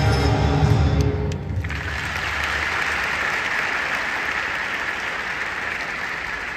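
Men's rhythmic gymnastics routine music ends about a second and a half in. Steady applause from the audience follows, marking the end of the routine.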